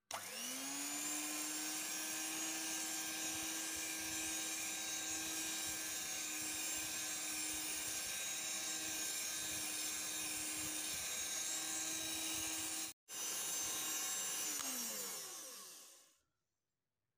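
Electric hand mixer running at steady speed, its beaters whisking cake batter in a glass bowl to mix in the leavening and lemon zest. It spins up with a rising whine at the start, cuts out for an instant about 13 seconds in, then winds down with a falling whine and stops about 16 seconds in.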